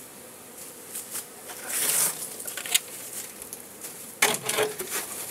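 Honey bees buzzing around an opened hive, with a few sharp knocks, a brief hiss about two seconds in, and a louder rustle a little after four seconds.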